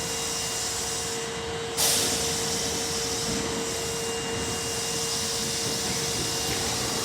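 Tanimachi Line subway car standing at a station: a steady hum runs under the noise of the car. About two seconds in, a loud hiss of air starts suddenly and carries on.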